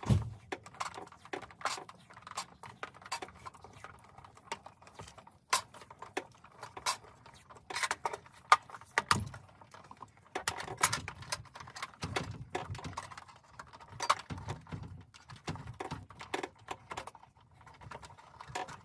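Irregular small clicks, taps and rustles of hands working the wiring at an electric water heater's junction box: electrical tape, wire connectors and the thin metal cover plate being handled. One sharper click stands out about eight and a half seconds in.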